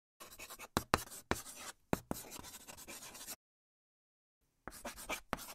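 Marker-drawing sound effect: quick scratchy strokes punctuated by sharp taps, in a burst of about three seconds, then silence for about a second before a second burst begins near the end.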